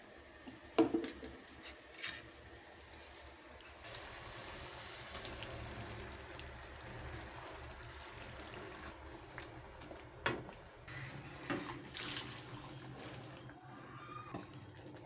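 Ground masala paste and then water poured from a steel mixer jar into a hot kadhai, with a steady sizzle from about four seconds in. There are a few sharp knocks of the jar and the wooden spatula against the pan.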